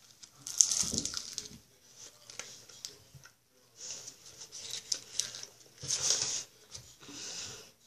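Chewing a bite of chocolate baklava close to the microphone: crisp, wet crunching and squishing of the pastry in several bursts.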